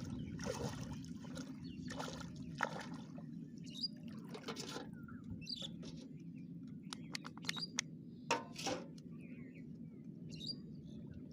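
Small birds chirping now and then, with several short bursts of splashing water over a steady low rumble, and a quick run of clicks about two-thirds of the way through.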